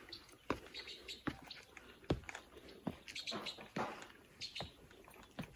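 Footsteps on a paved path, one step about every 0.8 seconds, with light scuffing between the steps.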